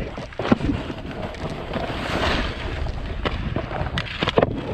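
Wind buffeting the microphone and skis hissing over packed snow during a fast downhill run, with a few sharp knocks, one about half a second in and several close together near the end.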